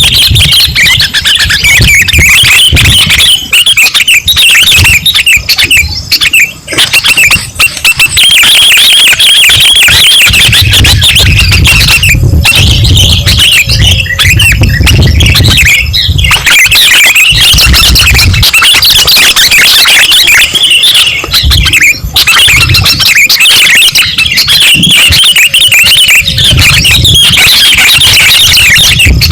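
Sooty-headed bulbuls (kutilang) calling in a dense, rapid stream of chirps, played loud and distorted as a bird-lure recording. A low rumble comes in around the middle and again near the end.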